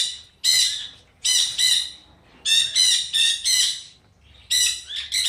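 A bird squawking: harsh, high-pitched calls repeated in quick runs of two or three a second, with short pauses between runs.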